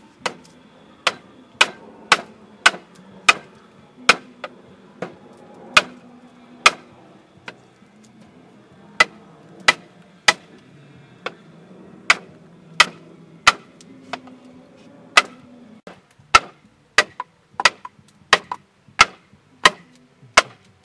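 Machete blade chopping into a fire-blackened bamboo tube to split it open: a run of sharp knocks, about one or two a second, coming quicker in the last few seconds.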